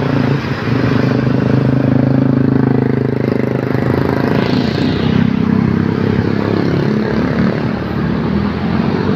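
Dense road traffic passing close by. The engine of a small dump truck runs loudest, with motorcycles and cars going by; the engine pitch slides up and down a couple of times.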